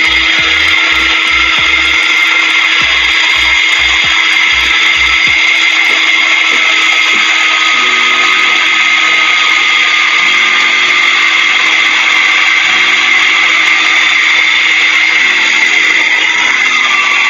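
Dongcheng DZR02-150 twin-blade wall chaser running steadily under load as it cuts a groove through a concrete slab with steel rebar inside. It makes a loud, steady whine, and one tone in it sinks slowly in pitch as the cut goes on.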